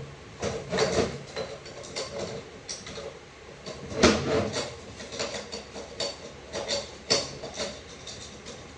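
Irregular metallic clinks, knocks and scrapes of hand tools on the steel snap rings and clutch-drum parts of a ZF 8HP45X automatic transmission as the snap rings are worked out. The sharpest knocks come about 4 s in and again about 7 s in.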